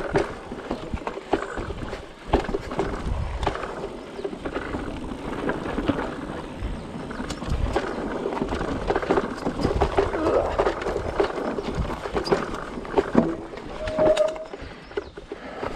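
Mountain bike descending a dirt flow trail: tyres rolling over the ground, with constant rattling and knocking from the bike over bumps and a rumble of wind on the microphone. A short squeak near the end.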